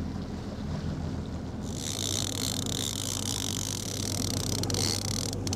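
Fishing boat's engine running at slow trolling speed, a steady low hum. About two seconds in, a strong high hiss joins it.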